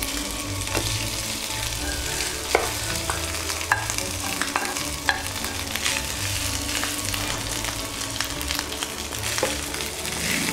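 Cooked rice and sliced garlic sizzling steadily in hot oil in a frying pan while a wooden spatula stirs and tosses it, knocking against the pan several times.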